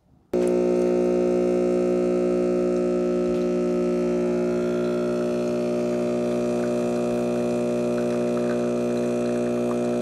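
Farberware Dual Brew espresso maker's pump switching on about a third of a second in and running with a steady, loud hum while it pulls a double shot of espresso.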